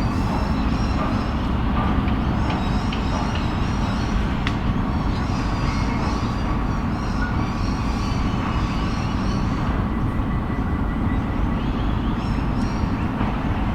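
City ambience: a steady, dense low rumble of traffic, with scattered light clicks and faint high chirps over it.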